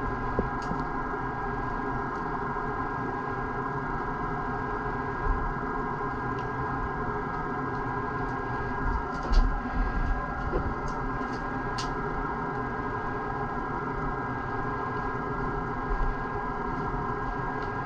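A steady machine hum holding several fixed tones, with a few faint ticks here and there.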